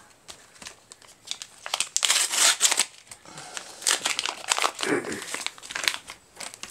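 A trading card pack's plastic wrapper being torn open and crumpled by hand, crinkling and crackling in a run of bursts, loudest about two seconds in.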